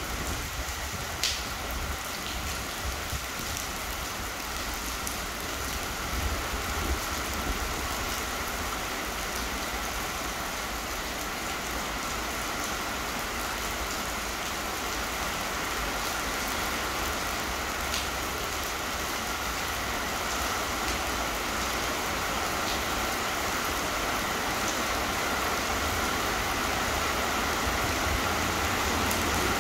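Heavy rain falling steadily, an even hiss over a low rumble, with a couple of sharp ticks from drops.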